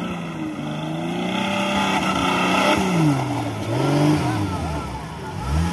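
Tube-frame off-road buggy's engine revving up and down while it is driven through mud, its pitch rising and falling several times and climbing sharply near the end.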